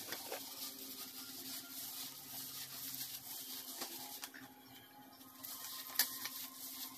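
Soft rustling of disposable plastic gloves rubbing through hair as dye is worked in, fading after about four seconds. One sharp tap about six seconds in.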